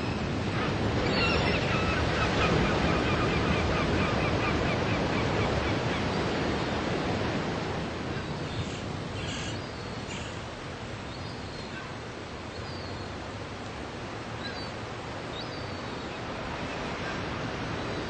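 Ocean surf: waves breaking and washing up a sandy beach, a steady rush of water. It is loudest for the first several seconds, eases off after about seven seconds, and builds a little again near the end.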